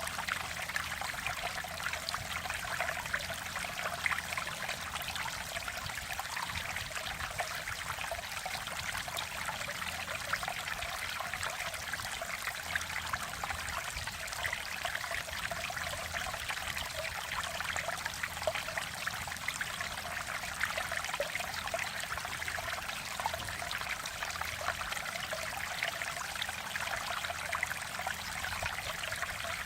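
Mountain stream water flowing and trickling over rocks in a steady, babbling rush.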